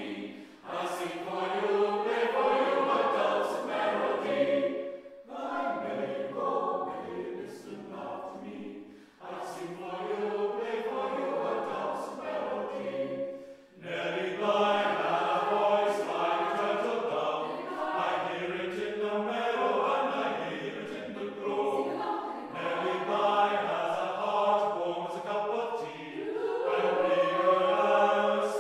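Chamber choir singing, in phrases broken by short pauses.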